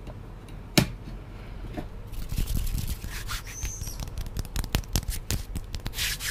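Hand sounds made close to a microphone for ASMR: one sharp click about a second in, then fast, crackly clicking and rubbing from the hands moving by the mic, growing busier toward the end.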